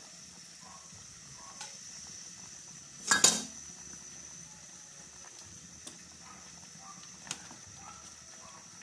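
A utensil knocking against a metal cooking pot while seasonings are stirred into the soup: one loud clatter about three seconds in, then a few light clinks.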